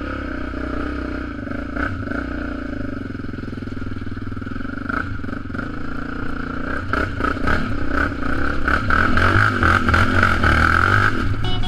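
Yamaha Raptor 700R sport quad's single-cylinder four-stroke engine running, growing louder and revving harder from about seven seconds in as it climbs a rocky trail, with clatter from loose rocks under the tyres.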